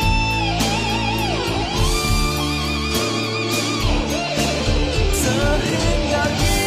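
Instrumental pop-rock music: a lead guitar plays a melody with wide vibrato and pitch bends over bass, drums and chords.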